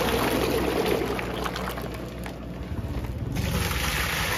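Liquid natural rubber latex gushing out of a plastic-lined sack into a metal bucket, a steady pour.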